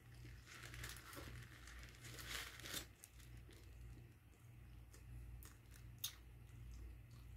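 Paper food packaging crinkling in two short bouts, about half a second in and again around two seconds in, then a single sharp click near six seconds. A steady low hum runs underneath.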